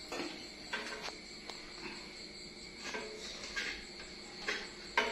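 Several light clatters and knocks as a stainless steel pan is handled and set on a dial spring kitchen scale, the sharpest near the end, over a steady high background tone.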